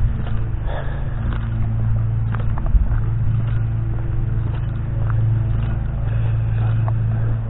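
A motor vehicle's engine running at a steady speed: a constant low hum, with a few light clicks and rattles over it.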